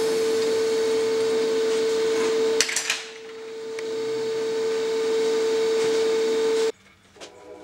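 Blacksmith's forge running with a steady rushing hiss and a constant hum. A single metal clank comes about two and a half seconds in as the hot scroll is lifted off the bending jig. The sound cuts off suddenly near the end.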